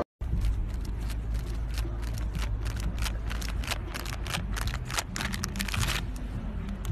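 Low, steady outdoor rumble, with a run of irregular sharp clicks and rattles that stops about six seconds in.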